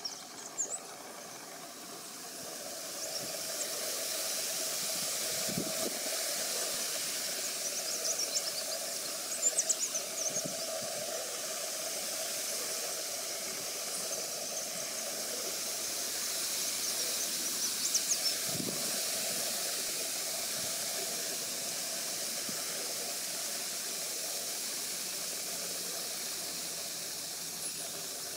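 Leaf warblers splashing as they bathe in a shallow tray of water, in short bursts a few times, over a steady hiss.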